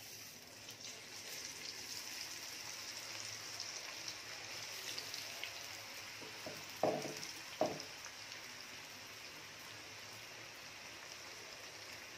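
Hot oil in a metal kadai sizzling steadily as handfuls of carrot-beetroot pakoda batter are dropped in to deep-fry; the sizzle builds over the first couple of seconds as the batter goes in. Two short knocks sound a little past the middle.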